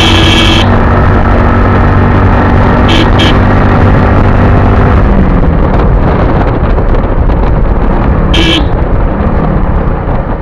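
Motorcycle riding along a road with loud, steady engine and wind noise; the engine hum fades into rushing wind about halfway through. A vehicle horn toots briefly four times: at the start, twice in quick succession about three seconds in, and once more near the end.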